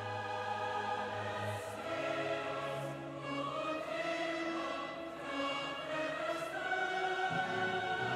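A large massed choir singing slow, held chords, with orchestral accompaniment beneath; the chords shift every second or so.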